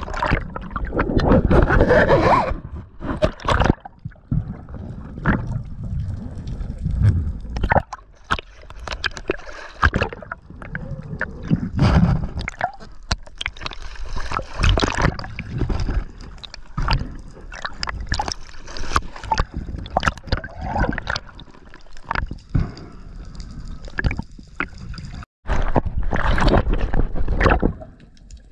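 Muffled underwater water noise through a camera housing: irregular sloshing and gurgling surges, with sharp knocks and clicks, while a speared amberjack is handled on the spear line.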